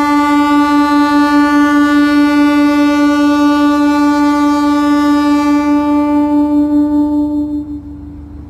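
Horn of a DEMU diesel multiple-unit passenger train held in one long, steady blast as the train departs, cutting off about seven and a half seconds in.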